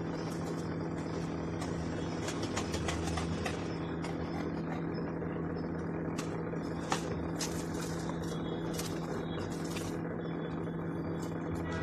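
Scissors snipping through a thin cardboard biscuit box: a quick run of cuts about two to three seconds in, then single sharp snips later on, over a steady low background hum.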